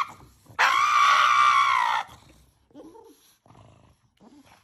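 Pug screaming while its nails are clipped: one long, high-pitched scream lasting about a second and a half, starting about half a second in, followed by a few faint short sounds.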